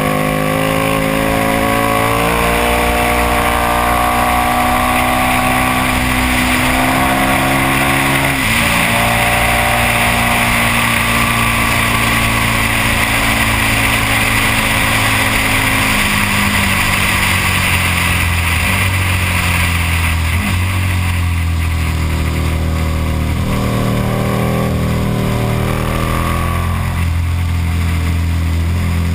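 KTM Super Duke's V-twin engine on the track, heard from a camera mounted on the bike, its pitch rising and falling as it accelerates and slows through the corners, with a sudden shift about eight seconds in. Wind rushes over the microphone throughout.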